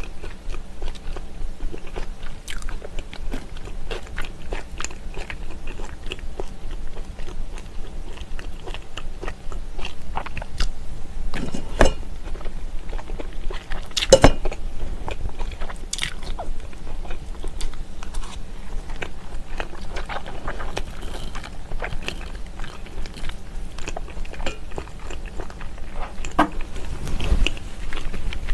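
Close-miked chewing of smoked salmon and raw sliced onion: wet mouth sounds and small crunches, with many little clicks and smacks and a few sharper ones about halfway through.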